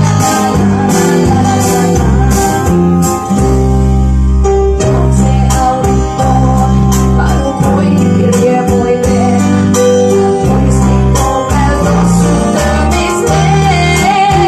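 A song playing: a sung vocal over bass and a steady drum beat.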